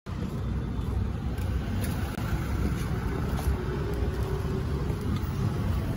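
Steady low rumble of street traffic and general street noise.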